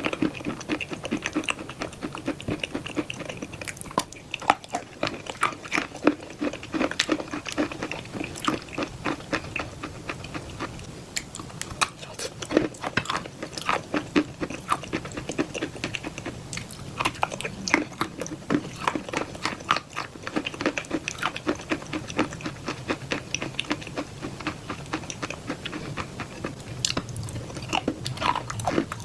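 Close-miked chewing and biting of black clay paste with white chalk: a dense, irregular run of crunchy clicks.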